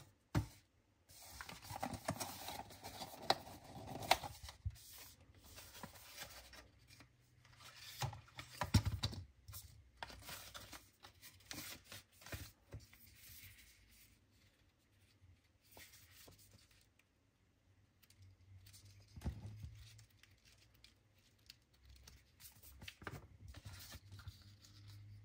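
Smartwatch packaging being opened by hand: film and paper tearing and rustling, with irregular sharp clicks and taps.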